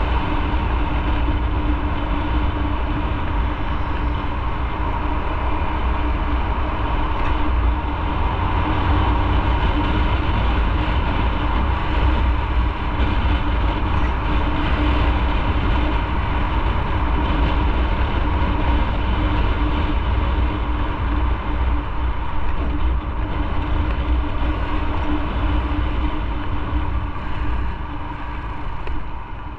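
Motorcycle riding at steady speed: continuous engine and road noise with heavy low rumble from wind on the microphone, easing off somewhat near the end.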